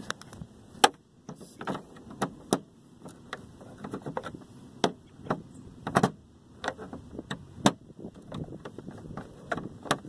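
Hand screwdriver working screws out of a flat-screen TV's plastic back panel: a string of irregular clicks and scrapes of metal on plastic.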